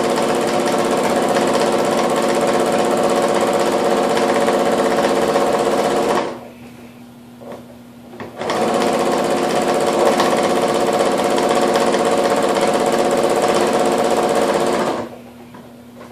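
Electric sewing machine running at a steady speed, top-stitching a fabric strip onto a hand towel. It runs for about six seconds, stops for about two seconds, then runs again and stops shortly before the end.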